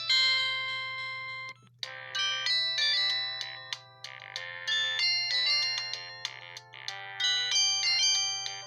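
LG W3000 mobile phone's built-in polyphonic ringtones: one tune's last note dies away about a second and a half in, and after a short break the next ringtone starts, a quick melody of short notes, over a steady low hum.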